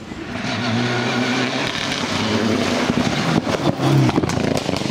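Subaru Impreza rally car's flat-four engine under hard acceleration, getting louder as the car approaches and passes close by about four seconds in. Sharp cracks come in a cluster near the loudest point.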